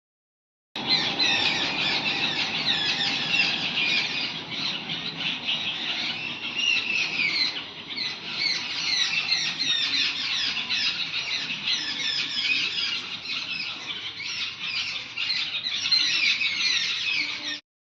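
A noisy chorus of many birds chirping and squawking at once, a dense tangle of short overlapping calls. It starts about a second in and cuts off abruptly near the end.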